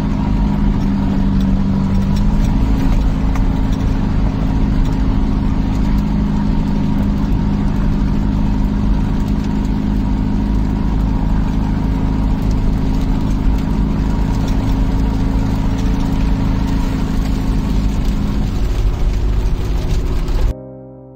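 Mahindra jeep engine running steadily under way on a dirt road, heard from inside the cab with road and wind rumble. Near the end it cuts off suddenly to piano music.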